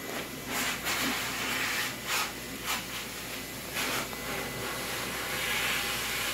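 Steady hiss with about six short, scratchy scuffs spread through it, the sound of puppies' paws and claws scrabbling on a hard laminate floor.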